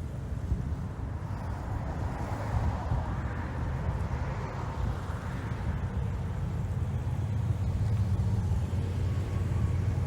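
Steady low engine rumble with a rushing hiss that swells and fades in the middle, like a motor running while underway.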